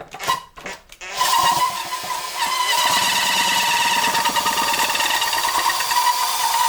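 A few handling clicks, then a small electric drill starts about a second in and runs steadily with a high motor whine.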